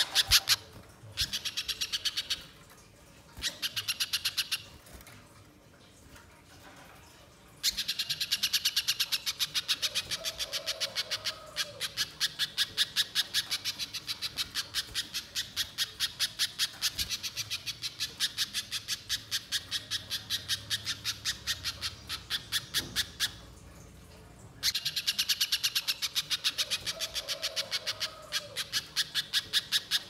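Little spiderhunter calling in long runs of rapid, sharp repeated notes, about six a second, broken by a few short pauses.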